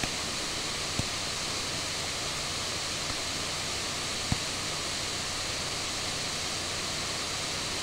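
Steady background hiss, even across low and high pitches, with two faint clicks, one about a second in and one past the middle.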